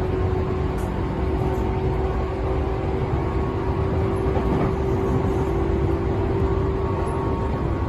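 Tobu 10000-series electric train running at a steady speed: an even rumble of wheels on rail with a steady hum from the drive.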